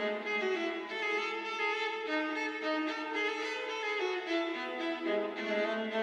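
Solo violin playing a melody, its bowed notes moving from one pitch to the next.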